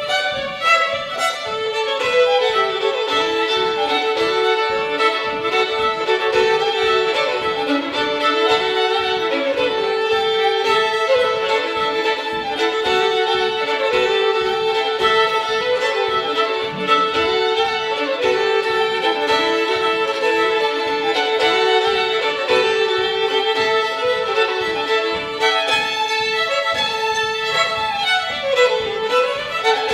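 Two fiddles playing a fast French Canadian reel together, with a note droned steadily beneath the quick melody.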